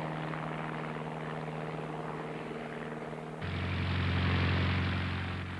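Single-engine light propeller aircraft engine droning steadily. About three and a half seconds in it cuts abruptly to a louder, lower-pitched engine drone of a high-wing light plane running on a grass airfield.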